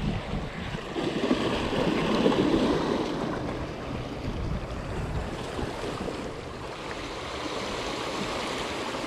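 Small sea waves washing and splashing against shoreline rocks, with wind on the microphone; the wash swells louder about a second in and eases off after about three seconds.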